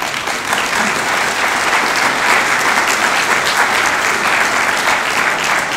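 Audience applauding, starting all at once and beginning to die down near the end.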